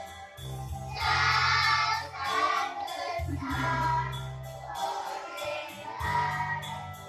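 Children's choir singing along with loud backing music that has a strong bass line, with some jingling percussion.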